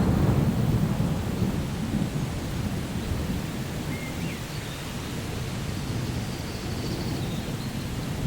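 Steady rain falling in a thunderstorm, with a low rolling rumble of thunder that is loudest at the start and fades over the first couple of seconds.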